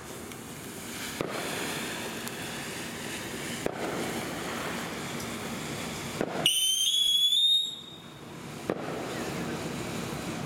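Black Cat Superior Sea Weed firework fountain spraying sparks with a steady hiss and a few sharp pops. About two-thirds of the way in, a loud whistle rising in pitch cuts in for about a second, then the hiss resumes.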